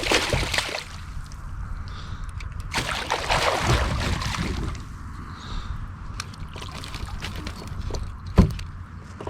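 Water splashing and sloshing as a small northern pike thrashes beside a kayak while it is landed with a net, with a few sharp knocks near the end.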